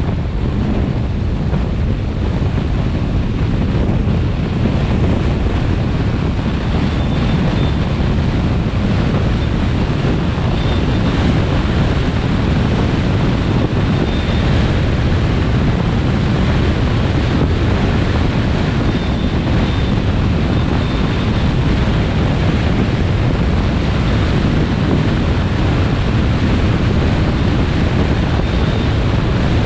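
Steady wind rushing over the microphone of a camera on a moving vehicle, a loud low rumble, with the vehicle's road noise underneath.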